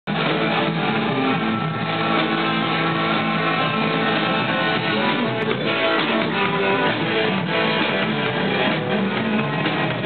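Electric guitars played through amplifiers in a loose band warm-up jam, continuous throughout.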